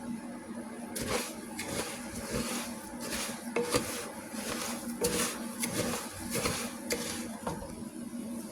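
A utensil stirring and scraping food around a pan as it browns, with a run of quick scrapes and clinks against the pan starting about a second in and stopping shortly before the end.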